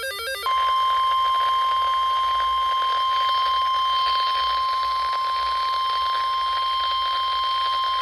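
NOAA Weather Radio warning alarm tone: a single steady, high-pitched tone that starts about half a second in and holds without a break, the alert signal that precedes a weather warning broadcast.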